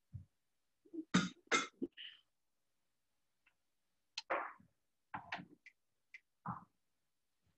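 A handful of short, separate bumps, shuffles and cough-like bursts, with silence between them: people moving and coughing in a church during Communion.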